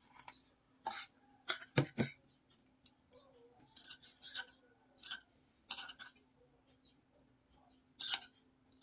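Utensils clinking and scraping against a metal pot and a bowl while noodles are served: a string of short, sharp clinks and scrapes at irregular intervals, over a faint steady hum.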